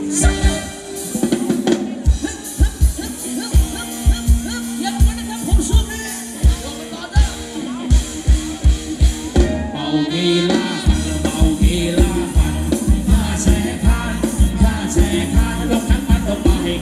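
Thai ramwong dance music from a live band: a steady drum-kit beat with bass, and a singer.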